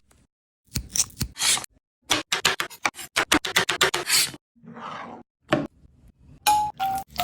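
Knife chopping vegetables on a cutting board in quick strokes, about five a second, in several short bursts. Near the end there are two short metallic rings.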